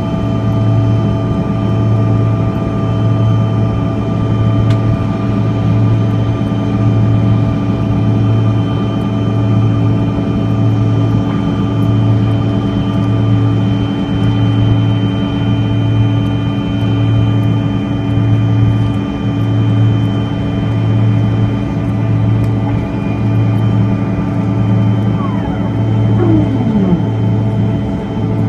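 Airliner's jet engines droning steadily just after takeoff, with several steady whining tones over a low hum that throbs evenly about once a second. A brief falling tone sweeps down near the end.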